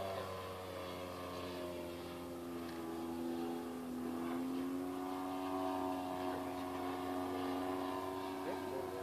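Radio-controlled model airplane's motor droning steadily in flight, its pitch rising slightly about four seconds in.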